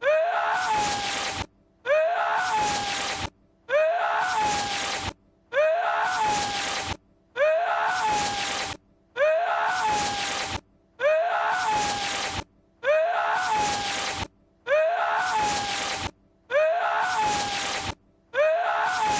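The same short clip of a man's sharp, breathy, sneeze-like cry, Lord Voldemort's voice, looped over and over: about ten times, once every two seconds, each cut off abruptly with a brief silence before the next.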